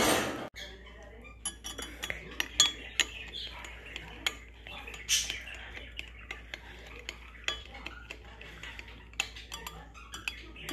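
Metal spoon stirring custard powder and liquid in a glass Pyrex measuring jug, with frequent irregular clinks and scrapes of the spoon against the glass. A brief loud rush of noise comes right at the start.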